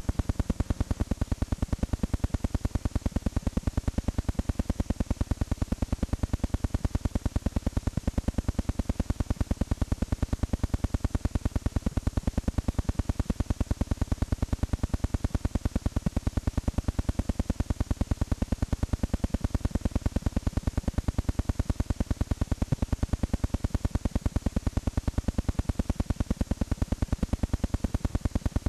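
Electrical static: a steady hiss with a rapid, perfectly even buzzing pulse.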